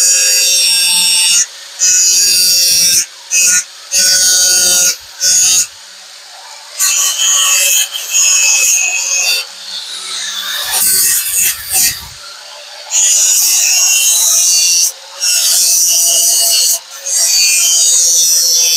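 Power grinder running with a steady whine, rasping against metal in repeated passes of one to two seconds each, cutting in and out about ten times as the piece is pressed on and lifted off: smoothing down a weld.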